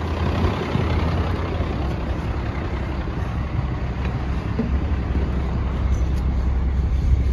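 Steady low rumble of a heavy vehicle's engine running, with a broad noisy hiss over it, growing a little louder about halfway through.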